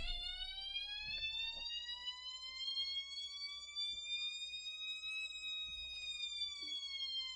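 RPM simulator playing back a recorded drag-race run, heard as an electronic whine that follows the engine speed. Its pitch climbs steadily for about five seconds, then eases down slightly.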